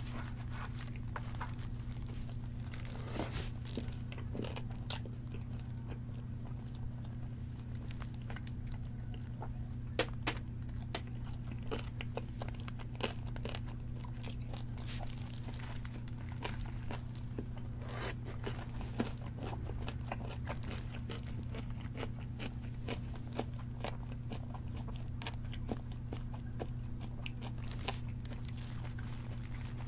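Close-up chewing of crispy fried chicken: scattered wet crunches and mouth clicks over a steady low hum.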